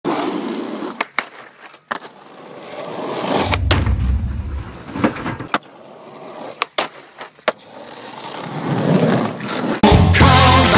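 Skateboard wheels rolling on asphalt, with several sharp pops and clacks of the board and the scrape of a backside crooked grind along a ledge. Music with a beat starts near the end.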